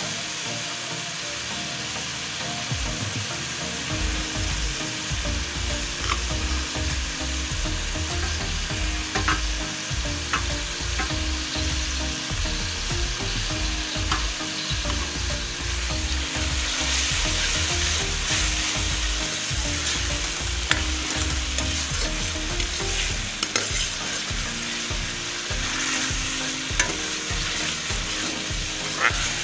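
Onion-tomato masala sizzling in hot oil in a metal pan while a steel spoon stirs and scrapes it, with occasional sharp clicks of the spoon against the pan.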